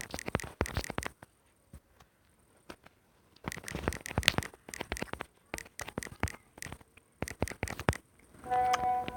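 Quick clicking taps of typing on a mobile phone, in three bursts. Near the end a brief tone with a few steady pitches sounds.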